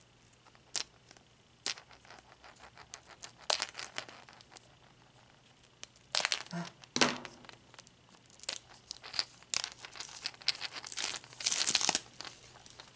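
Small scissors snipping at the clear tape sealing a plastic surprise egg, then the tape being peeled and torn away with crinkling. It comes as scattered snips and crackles, with louder crinkling about six seconds in and again near the end.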